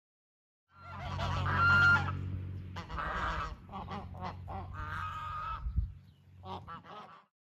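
Domestic geese honking: starting just under a second in, a long loud call, then a string of shorter honks, another drawn-out call and a few quick honks near the end, over a low steady hum.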